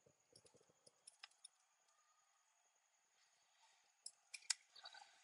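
A few faint, scattered computer clicks over near silence, from mouse and keyboard use while copying and pasting code: a couple about a second in and a small cluster, the loudest, around four and a half seconds in.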